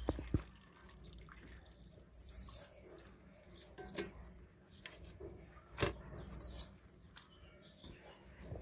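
Dishes knocking and clinking as plates are handled in a plastic dish basket, with two short, very high bird chirps, one about two seconds in and one about six seconds in.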